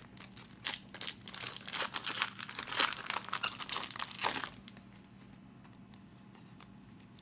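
A trading card pack's wrapper being torn open and crinkled for about four and a half seconds, then only faint rustling.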